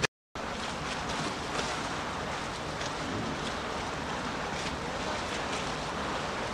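Steady rushing outdoor noise of wind and water, with a click and a brief dropout to silence right at the start.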